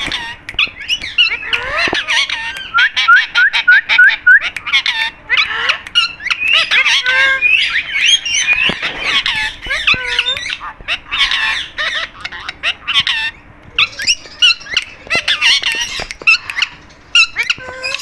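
Indian ringneck parakeets chattering: a busy, loud run of short squawks, chirps and whistled glides, with a quick series of repeated rising notes about a second in.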